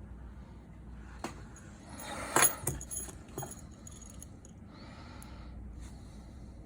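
Small tools and metal parts being handled, giving light clicks and metallic clinks. The loudest cluster comes about two and a half seconds in, and a brief rustle follows near five seconds.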